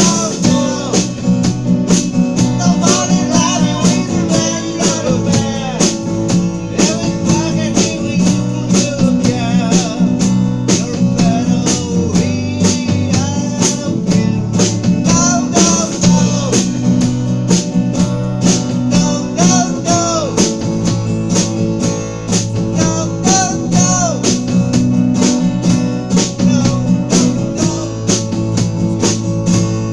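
A rock band playing, with electric guitar over bass and a drum kit keeping a steady beat.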